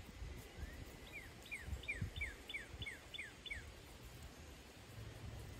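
A songbird singing a run of about nine short whistled notes, each sliding downward, quickening as the song goes on, over a low rumble of handling or wind noise.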